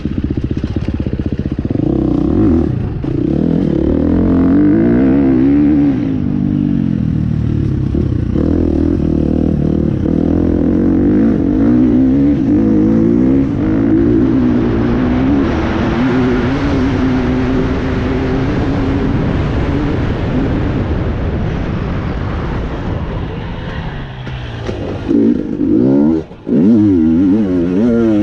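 KTM dirt bike engine revving up and down as the rider works the throttle and gears along a trail. It eases off briefly about two seconds before the end, then picks up again.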